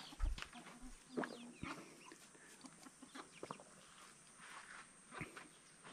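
Chickens clucking in short, scattered calls, with a couple of low thumps in the first second.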